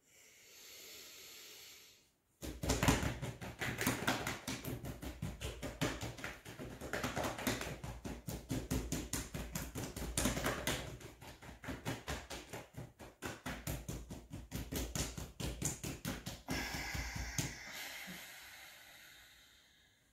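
A breath drawn in, then about fifteen seconds of rapid, continuous tapping of hands on the chest, a breathing exercise drumming the rib cage, ending in a long breath out.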